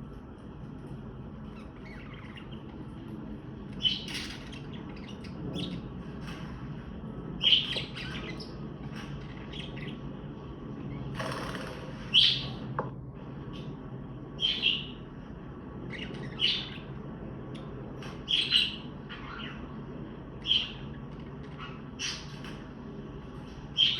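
Budgerigar (parakeet) chirping: short bright chirps repeated about every two seconds, over a steady low hum.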